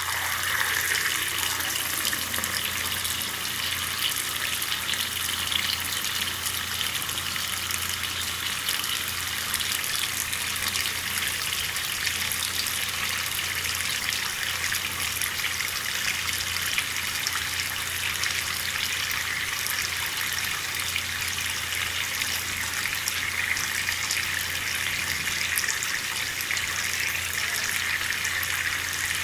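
Water tap running steadily, a full stream of water splashing into a sink.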